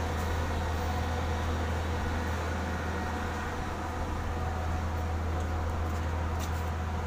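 Steady low machine hum, with a few faint clicks in the second half.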